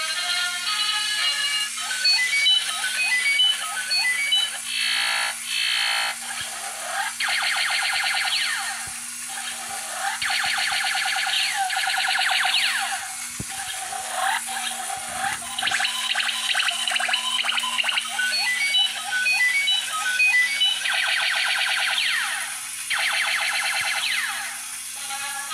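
Battery-powered toy robot's electronic sound effects through its small speaker. Beeping tunes of short stepped notes alternate with long stretches of rapid, repeating laser-fire warbles, over a steady hum from its motor. There is some plastic clattering about halfway through as its parts move.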